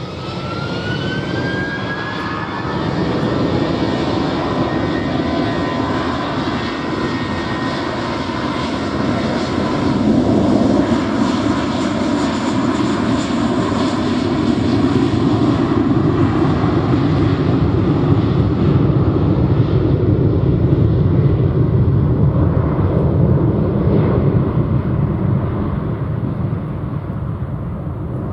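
Airbus A321-231 jet engines (IAE V2500 turbofans) spooling up for take-off. A whine rises over the first few seconds, then the roar of the take-off roll swells and eases a little near the end as the airliner moves away.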